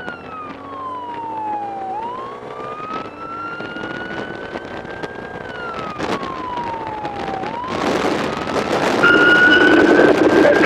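Police motorcycle's siren wailing, sweeping slowly down and back up in pitch about every five seconds, with the motorcycle's engine running beneath it. A loud rushing noise swells in about nine seconds in.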